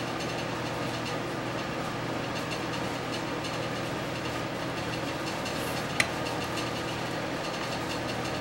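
A steady mechanical hum, with one sharp click about six seconds in from needle-nose pliers working a wire on a circuit board.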